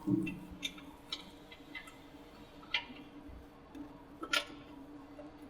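Light metal clicks and knocks from hand work on the snowblower mount's locking pin and lever. There is a dull knock at the start, scattered lighter ticks, and a sharper click about four seconds in, over a faint steady hum.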